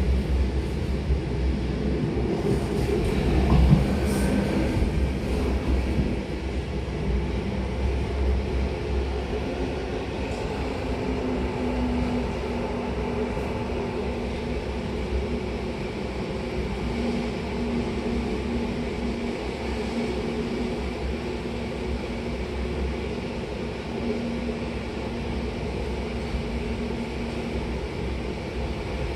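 A Belgian Railways classic electric multiple unit (AM Classique) running on the rails: a steady rumble, with a brief louder knock about four seconds in.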